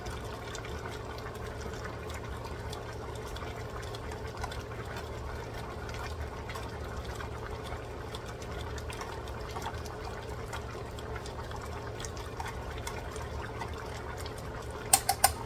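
Pot of chicken adobo simmering steadily over a low hum, with a few sharp clicks near the end.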